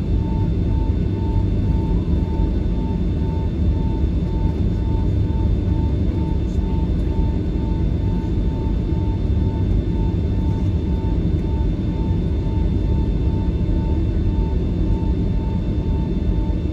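Cabin noise inside a Boeing 757-300 taxiing after landing: a steady low rumble from the idling engines and the rolling airframe. A faint high tone pulses about twice a second.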